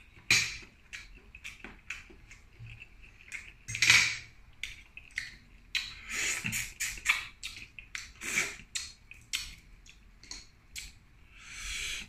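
Close-up eating of shellfish by hand: several half-second sucking slurps, the loudest about four seconds in, among many small clicks and smacks of shells and mouth.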